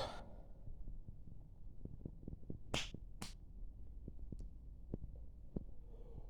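The end of a belch right at the start. Then a lull of faint mouth clicks and two short breathy hisses about three seconds in, between burps.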